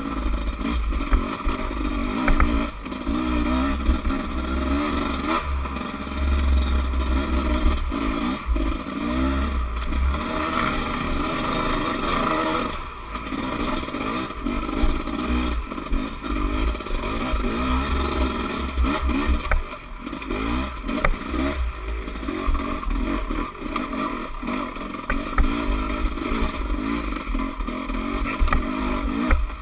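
Dirt bike engine revving up and down as the bike is ridden over a rough, muddy trail, with clatter and knocks from the bumps. The revs drop briefly twice, about halfway through and again about two-thirds of the way through, as the throttle eases off.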